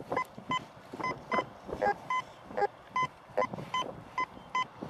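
Fisher F75 Black metal detector sounding short, loud beeps about twice a second as its coil is swept back and forth over a target. Most beeps share one pitch and a few are lower. The target is a copper coin standing on edge, which gives a signal from one side only.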